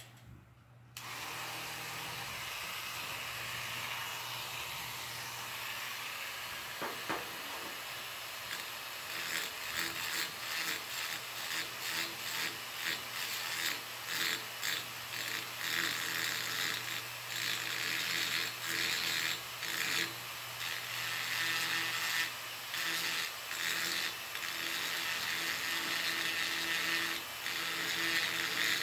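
Dremel rotary tool on a flexible shaft switching on about a second in and running steadily, its bit grinding and smoothing the port of a Stihl 034 AV chainsaw cylinder. From about nine seconds in the grinding comes in uneven strokes, dipping and rising as the bit works the metal.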